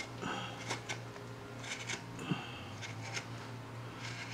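Hand-held V tool slicing into a wooden carving: a series of short, faint scraping cuts of the blade through the wood.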